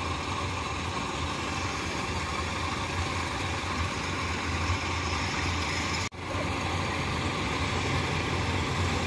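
Farm machinery engines running steadily: a tracked rice-hauling cart and combine harvesters working the rice field. The sound cuts out for an instant about six seconds in.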